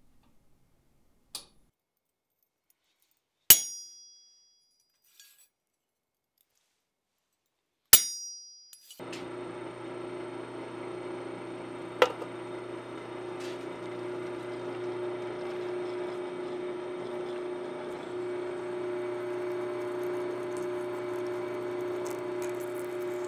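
Two sharp ringing metal clinks, about 3.5 and 8 seconds in, with a fainter one before them. About 9 seconds in a drill press starts and runs steadily with a humming tone, drilling 3/16-inch cross-pin holes through a steel axe strap clamped in a drill-press vise.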